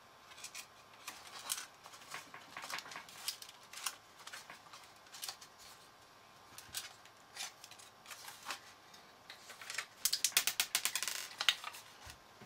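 Handling noise from a graphics card being turned over in the hands: scattered clicks and taps of its plastic shroud and fins. A quick run of clicks about ten seconds in is the loudest part.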